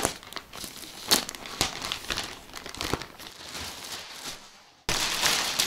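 Plastic courier mailer bag crinkling and crackling as it is cut open with scissors and the plastic-wrapped contents are pulled out. It fades out about four seconds in, then the crinkling resumes suddenly, louder.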